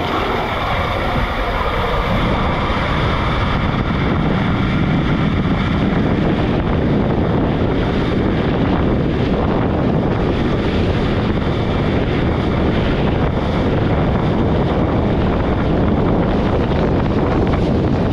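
Water rushing and a rider's body sliding at speed through an enclosed high-speed body slide tube: a loud, steady rushing rumble with no breaks.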